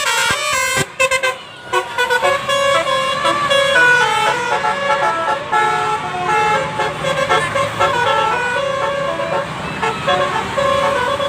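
A bus's basuri multi-tone telolet horn playing a melody of quick, stepped notes. For the first couple of seconds it sounds in short, choppy blasts, then it runs on as a continuous tune.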